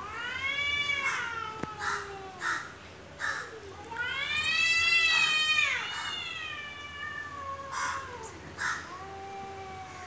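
Two domestic cats caterwauling at each other in a face-off: long wavering yowls that rise and then fall in pitch, the longest and loudest about four seconds in, with a lower yowl holding underneath. It is the drawn-out threat yowling of a territorial standoff. A few short harsh calls cut in between the yowls.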